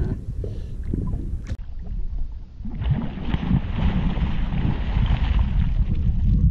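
Wind rumbling on the microphone in an open fishing boat; about three seconds in a steady rushing hiss joins it.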